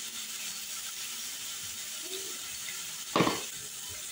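Tomatoes and onions frying in oil in a wok: a steady, soft sizzle. A single short thud about three seconds in.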